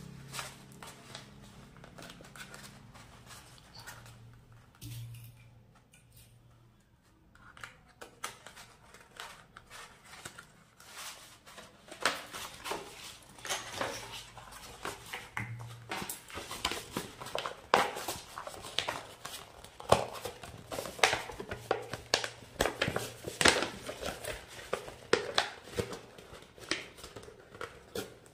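Sheets of stiff paper being folded, gathered and pinned by hand: irregular crinkling and rustling, sparse at first and getting busier and louder from about twelve seconds in.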